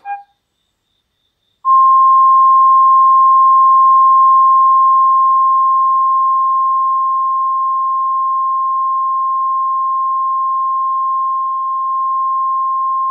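A DRM digital radio receiver's speaker plays a steady, single-pitched test-tone-like beep on one of the station's services. It starts about a second and a half in and holds until the listener switches service near the end. A short button click and blip come at the very start.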